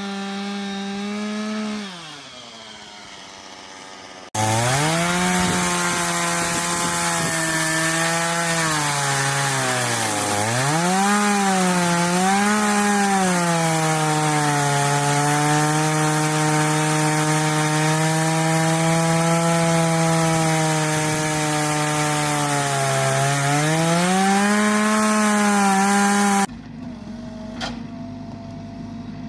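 Sawmill's engine running hard as the saw blade cuts through a log, with a steady hiss of sawing; the engine pitch sags under load and recovers, then holds steady. Near the start it winds down, and near the end the sound drops suddenly to a quieter engine running with one click.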